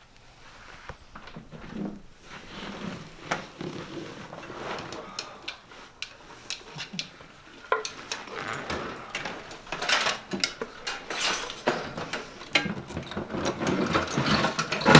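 Irregular clinks, knocks and rustling of objects being handled, getting busier about halfway through.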